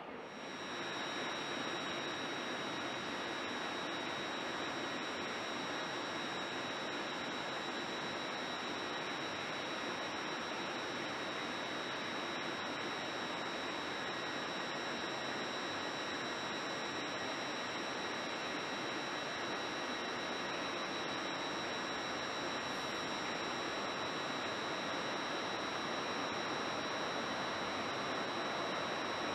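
Steady background hiss of a large railway station's train shed, with two constant high-pitched whining tones over it.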